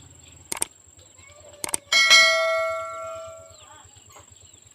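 Two quick pairs of clicks, then a bell-like ding about two seconds in that rings for about a second and a half and fades away.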